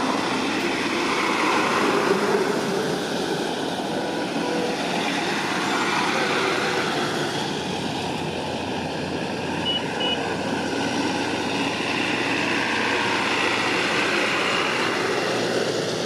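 Jet engines of a Boeing 787 climbing away after takeoff: a steady roar whose tone slowly shifts as the aircraft draws away.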